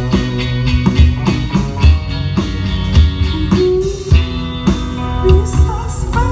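Live rock band playing an instrumental passage: electric guitars over a drum kit, with regular drum hits under sustained guitar notes.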